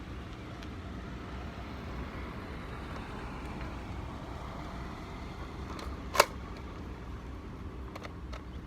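A single sharp shot from a paintball gun about six seconds in, over a steady low background rumble.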